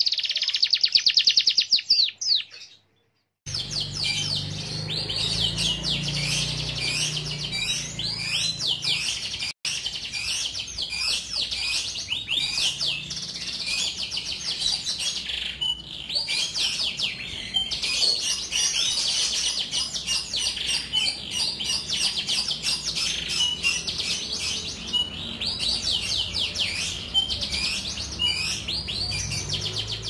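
Domestic canary singing a long, continuous song of rapid trills and warbling phrases. The song cuts out briefly about three seconds in, then resumes.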